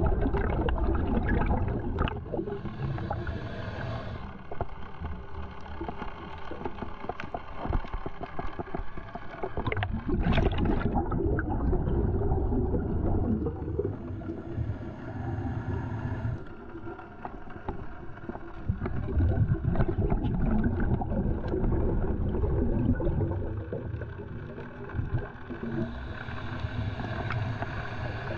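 Scuba diver's regulator breathing heard underwater through the camera housing: long gurgling rushes of exhaled bubbles every several seconds, with quieter stretches between.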